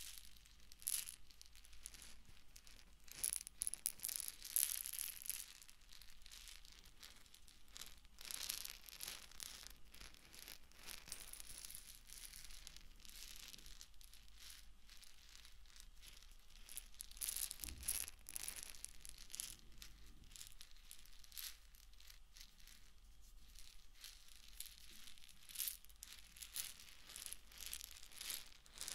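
Fingers scratching and tapping on egg-shaped objects held close to a binaural microphone's ears: faint, crisp crackling scratches with clusters of sharper clicks, loudest a few seconds in and just past the middle.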